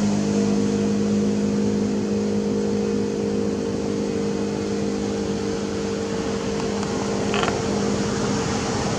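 Steady hum of an idling engine or motor. A brief high chirp sounds about seven and a half seconds in.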